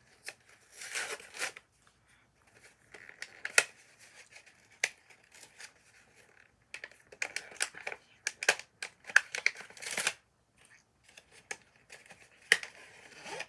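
Plastic crinkling and tearing in irregular bursts, with a few sharp clicks, as the corrugated plastic bendy fidget tubes and their packaging are handled.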